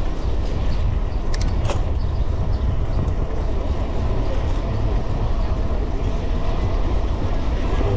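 Steady wind rumble on the microphone during a bicycle ride, heaviest in the low end, mixed with road noise. A few sharp clicks come about a second and a half in.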